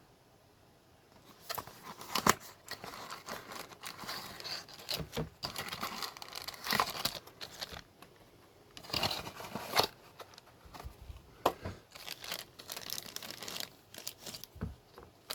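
Packaging being handled and torn open: irregular crinkling and tearing with a few sharp clicks, starting after about a second and a half of quiet.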